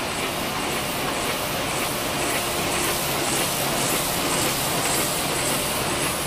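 1997 Mitsubishi six-colour sheetfed offset printing press running at production speed, a steady rhythmic mechanical clatter with a hiss over it.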